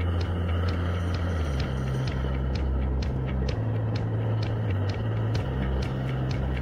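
Propane burner of a homemade bucket foundry furnace running steadily, heating a crucible of scrap aluminum toward melting temperature.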